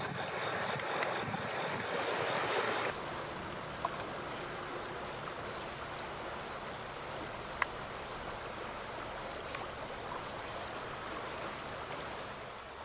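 Steady rushing outdoor noise like a flowing stream, with a few faint sharp clicks. The sound changes abruptly about three seconds in, dropping to a quieter, even rush.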